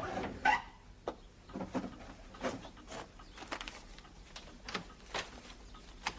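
Sheets of paper being handled: a string of soft, irregular rustles and light taps, busiest near the start.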